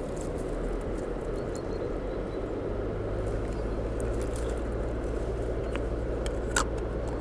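A steady low rumble with a low hum throughout. A few small clicks of a plastic lid against a glass jar of tiger nuts, the sharpest one near the end.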